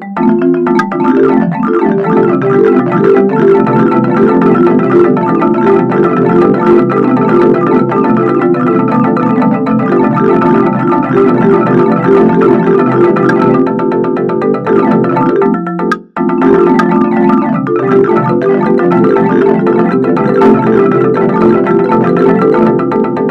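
Background music made of quick runs of short pitched notes, breaking off for a moment about two-thirds of the way through before carrying on.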